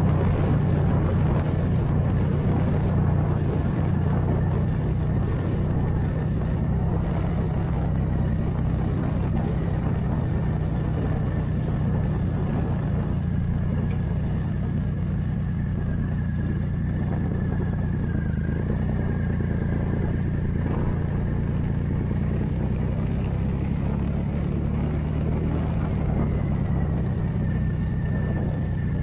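Motorcycle engine running steadily at cruising speed, with wind and road noise and a faint, steady high whine above it.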